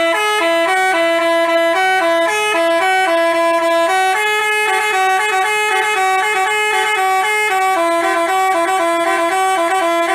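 Basuri telolet bus horn, a multi-tone air horn, playing a fast melody of short stepped notes.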